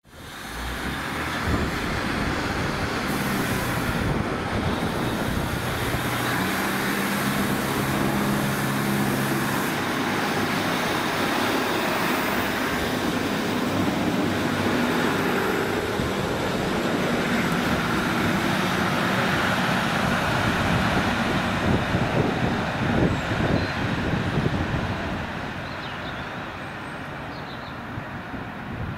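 Diesel multiple unit running close by along the platform: a steady engine and rail rumble with a low, steady engine note between about six and ten seconds in. The sound drops quieter near the end.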